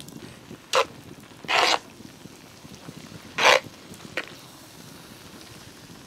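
A metal spoon scraping in a cast-iron Dutch oven while chili is stirred: about five short rasping scrapes, spaced irregularly, over a faint steady background.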